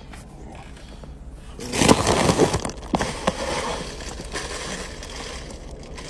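Rustling and scraping handling noise from a phone being moved around a van cab past a plastic bag, loudest about two seconds in, followed by two sharp knocks about a second later.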